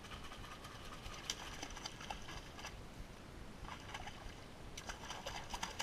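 Light splashing and dripping of water at the boat's side in four short spells, as bamboo fishing poles disturb the surface.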